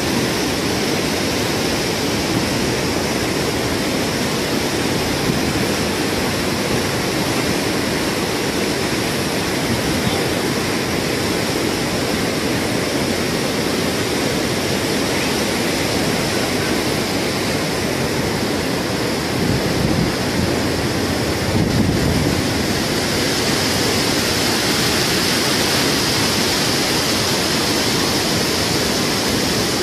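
Muddy floodwater rushing and churning over a concrete spillway: a loud, steady, even rush of water, with a brief low rumble about two-thirds of the way through.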